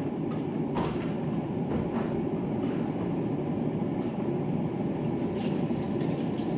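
Steady low whirring rumble of a kitchen appliance running, with a couple of faint light clicks about one and two seconds in.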